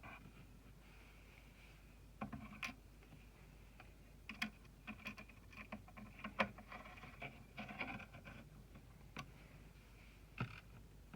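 Scattered light clicks and taps of small computer parts being handled during an M.2 SSD install on a motherboard, most of them between about two and eight and a half seconds in, with a single one near the end.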